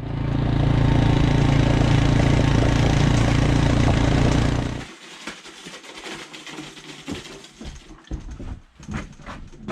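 Air compressor running with a steady low hum, shutting off about five seconds in, followed by light clicks and knocks of handling.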